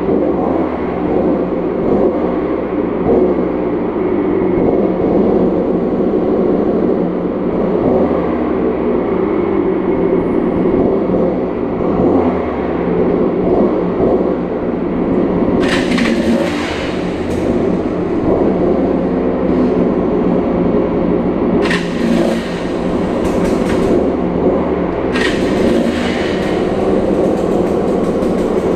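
Off-road vehicle engine running and revving as it moves through a tunnel, loud and echoing, with a few brief harsh bursts of noise about halfway through and near the end.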